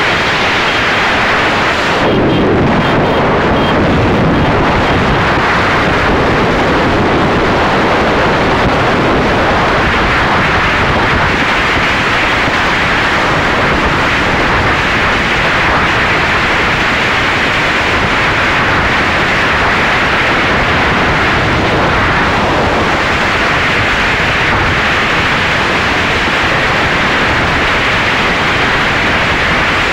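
Steady loud wind noise on the microphone of a phone carried on a two-wheeler moving at speed, an even rushing with no distinct engine note.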